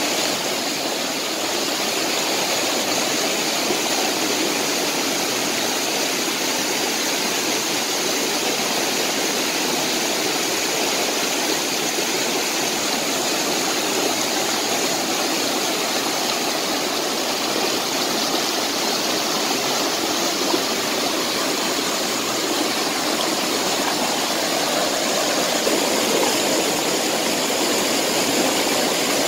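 A rocky stream rushing over small cascades: a steady, even rush of running water.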